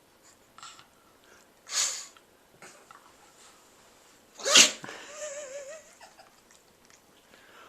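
A pug sneezing twice, about three seconds apart, the second sneeze the louder, with a few small snuffles around them and a brief wavering squeak just after the second sneeze.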